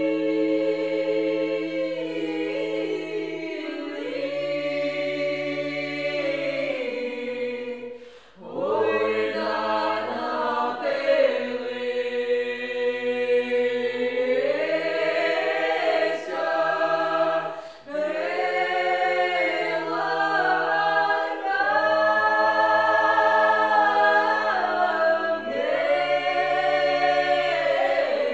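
Small mixed group of women and men singing a traditional Ukrainian folk song a cappella in close harmony, the men holding a low part beneath the women's voices. The song moves in long held phrases, with brief breaks about 8 seconds in and again near 18 seconds.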